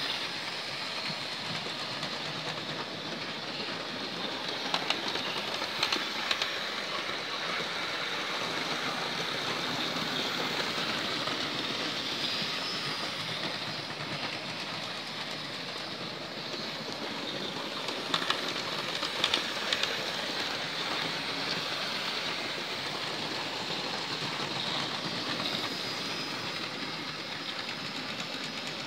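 Hornby OO-gauge model trains running round a layout: a steady whir of small electric motors and wheels rolling on the track. Two short bursts of sharp clicks, about five seconds in and again near twenty seconds in.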